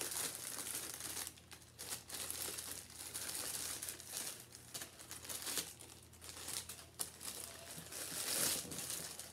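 Clear plastic packaging bag crinkling and rustling in the hands as a small desk fan is unwrapped and pulled out of it. The crinkling comes and goes, with short lulls a little over a second in and again around six seconds in.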